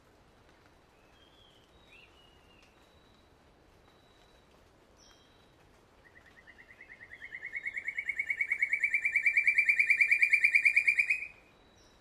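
Black sicklebill giving a loud, rapid pulsed trill of about a dozen notes a second. Starting about halfway in, it swells in volume and creeps slightly up in pitch for about five seconds, then stops abruptly. Faint chirps of other birds come before it.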